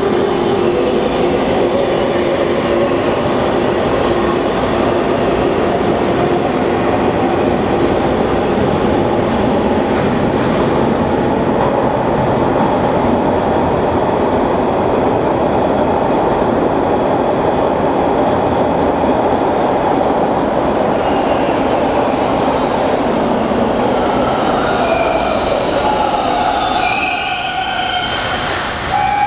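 Toronto subway trains running through the station: steady loud rail noise as one train pulls away, then the next train arrives, its motor whine falling in steps as it brakes to a stop near the end.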